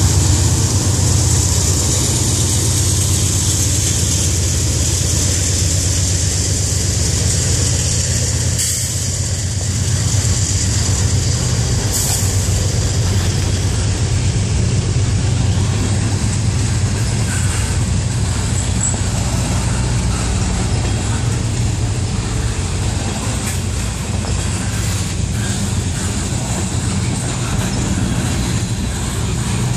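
Freight train passing close by, with a steady rumble and hiss of steel wheels on the rails as the cars roll past. A couple of sharp clanks come about nine and twelve seconds in.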